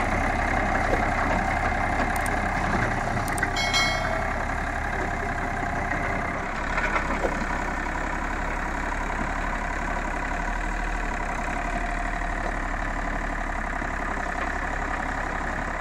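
IHI 30 mini excavator's diesel engine running steadily at close range with its engine cover open, working the hydraulics as the boom digs. A few sharp metallic clicks sound about three and a half seconds in.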